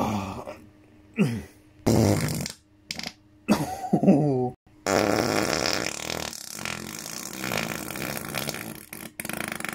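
A run of farts: three or four short, separate blasts, some of them pitched and wavering, then one long, rough, drawn-out fart lasting about four seconds.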